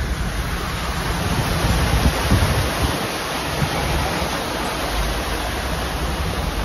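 Wet-season floodwater rushing and churning through a roadside culvert: a steady, loud rush of white water with a deep rumble underneath.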